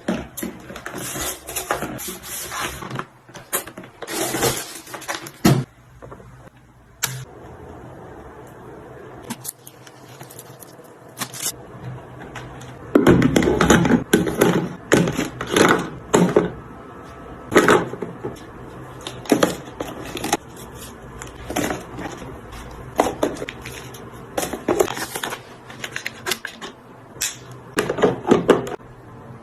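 Irregular handling noises: clicks, light knocks and scrapes as small objects are moved and set down, with a cluster of louder knocks about halfway through.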